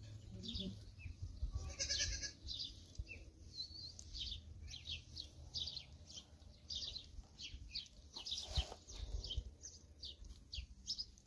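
Small birds chirping over and over in short, high notes, with a single bleat from livestock about two seconds in, over a low rumble.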